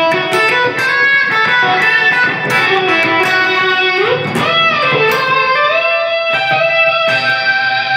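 Electric guitar lead solo played through a multi-effects processor on an overdriven drive patch set up for solos: long sustained single notes, with an upward string bend about four seconds in followed by vibrato, then held notes.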